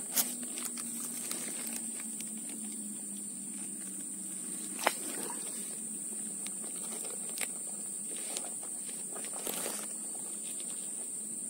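Steady high-pitched buzz of a tropical insect chorus, with a few sharp clicks scattered through it.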